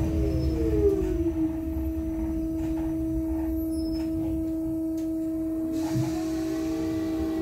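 Interior of an Ursus T70116 trolleybus: the electric traction drive's whine falls in pitch as the vehicle slows over the first second and a half, under a steady high hum. About six seconds in, a blower switches on with an even rushing hiss, and the drive's whine starts to rise again near the end.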